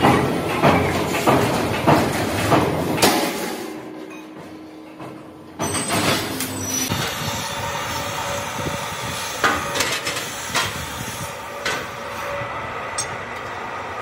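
Metal clatter from steel sheet being worked on a press brake: regular knocks for about three seconds, fading away. Then, after a sudden start, a steady mechanical noise with a few sharp clanks as the bent steel sheet is handled on metal trestles.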